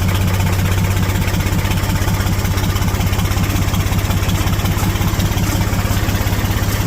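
Massey tractor's diesel engine running at idle just after a cold start in 5 °F weather, with an even, rapid beat; it is running unhappily, still cold.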